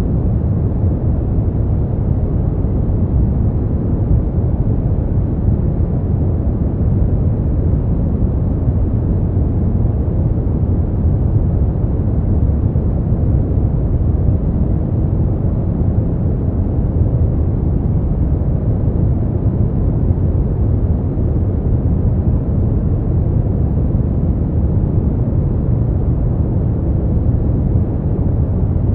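Brown noise: a steady, smoothed low rumble of noise with no rhythm or events, strongest in the low bass and falling away toward the treble.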